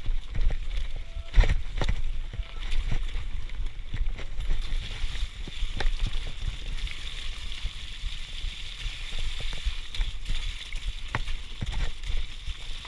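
Mountain bike rattling and knocking as it rides over a rough, rocky dirt trail, with a constant rumble of tyres on the ground and a hard knock about a second and a half in.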